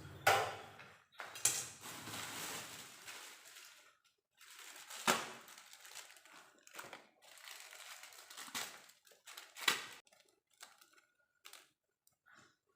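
Kitchen handling sounds: several sharp knocks and clatters with rustling and scraping between them, thinning out to a few small clicks near the end.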